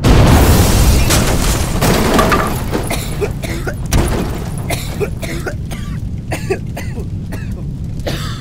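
An explosion sound effect: a sudden deep boom that slowly dies away, followed by a run of sharp crackles and pops.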